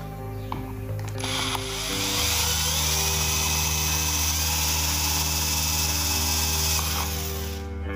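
Power drill running, its twist bit boring a hole through the black plastic housing of a car tyre inflator; the drilling starts about a second in and stops just before the end. Background music plays throughout.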